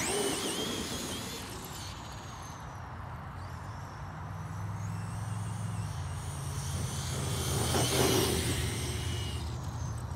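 Electric RC truck driving over grass, its motor whining in glides that rise and fall as the throttle is worked, loudest about eight seconds in.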